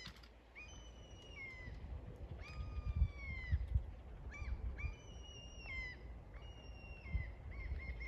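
A bird calling over and over: clear calls of up to a second each, most ending with a drop in pitch, then a quick run of short notes near the end. Under them a low rumble and a few dull knocks.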